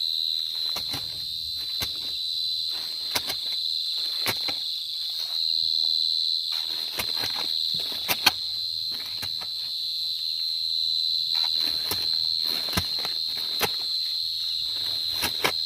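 Crickets trilling steadily at a high pitch. Over the trill come repeated sharp knocks and scraping as a hoe digs into soil at a cricket burrow.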